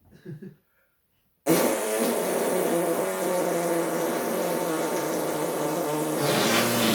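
An arm fart: a raspberry blown against the skin of the arm, making a long buzzing fart noise. It starts suddenly about a second and a half in, holds a steady pitch, and changes tone near the end.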